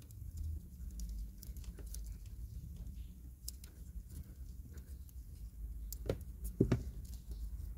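Hands working on car wiring: small scattered clicks and taps of wires and electrical tape being handled, with two louder knocks near the end, over a steady low hum.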